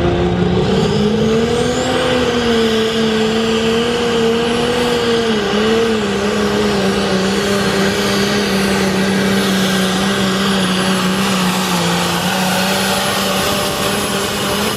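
Turbocharged diesel engine of an International 1066 pro stock pulling tractor running at full throttle while pulling a weight-transfer sled. Its pitch rises about a second in, dips briefly about five seconds in, and otherwise holds steady.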